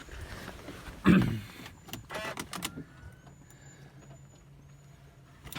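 A heavy thump about a second in, like a car door shutting, then a run of sharp clicks and rattles, as of a key going into the ignition of a Mercedes E320 CDI. Near the very end the low sound of the car starting rises.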